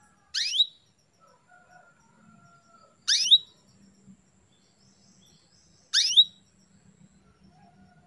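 Female domestic canary calling: three short, rising chirps, evenly spaced about three seconds apart.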